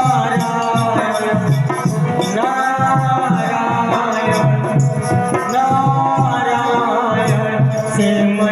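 Music with a steady, regular beat, a shaker rattling over it and a melody line that bends up and down.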